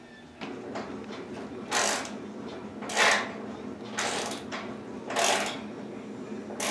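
Ratchet wrench tightening the screws that hold the air ejector nozzle on a turbojet's tail: five short ratcheting strokes about a second apart, over a steady low hum.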